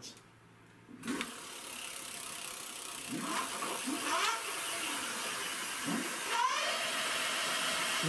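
Electric bike's rear hub motor spinning the back wheel freely under throttle. It is a whirring hiss that starts about a second in and builds steadily as the wheel speeds up, with a few rising whines.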